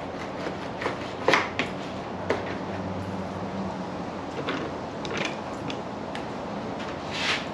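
Fish-cleaning sounds: a fillet knife and mahi-mahi fillets being handled on a plastic cleaning table and cutting mat, giving a few light knocks and scrapes, with a longer scrape near the end.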